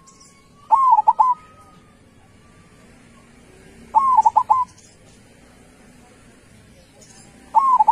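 Zebra dove (perkutut) singing its cooing song: three short phrases of quick rippling notes about three seconds apart, the third starting near the end.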